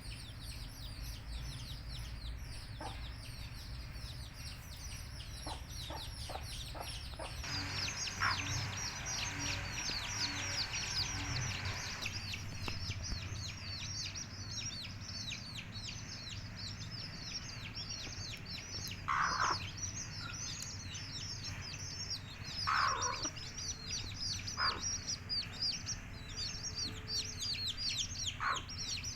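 A flock of baby country chicks peeping without a break in a dense chorus of short, high, falling chirps, with a mother hen clucking now and then, about five times.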